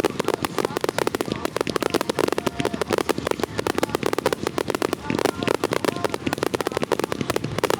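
Fireworks going off in a dense, rapid barrage: many sharp pops and cracks a second, without a break.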